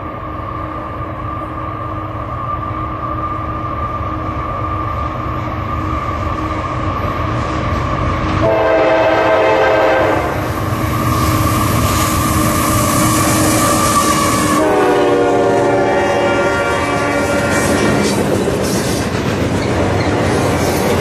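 Diesel freight locomotives approaching and passing, their rumble and a steady whine growing louder; the locomotive air horn blows twice, a short blast about eight seconds in and a longer one about fifteen seconds in. The freight cars then roll by with the clatter of wheels on rail joints.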